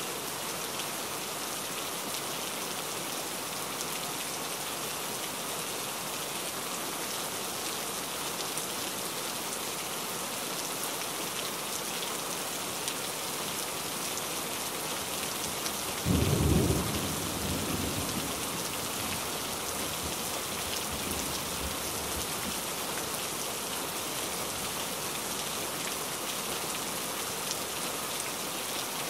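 Steady heavy rain. A little past halfway, a low thunder clap breaks through and rumbles away over the next few seconds.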